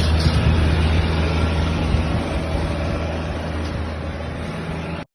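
Motor vehicle running: a steady low engine drone with road noise, slowly getting quieter and cutting off suddenly about five seconds in.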